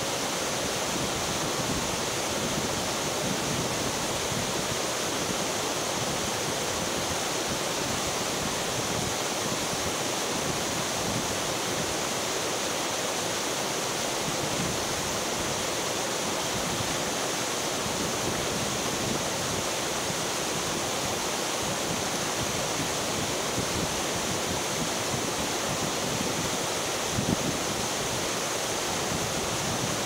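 Waterfall pouring: a steady, unbroken rush of falling water. Near the end there is one brief low bump.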